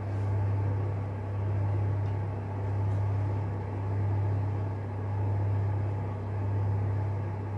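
Room heater giving a steady low hum that swells and eases slightly about once a second.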